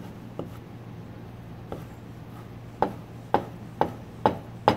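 Chef's knife chopping bacon on a plastic cutting board: a few light taps, then five sharp knocks about two a second in the second half. A steady low hum runs underneath.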